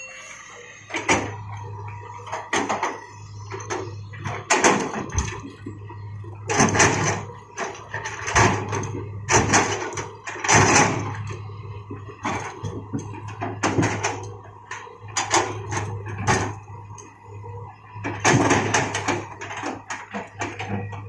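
Hitachi excavator's engine running steadily while its bucket digs and loads rock, with repeated irregular knocks and clattering of rock striking rock and steel.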